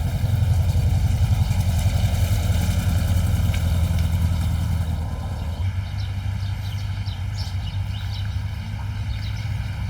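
A car engine idling with a steady low hum, over the rush of a rain-swollen river. The hum eases a little about halfway through.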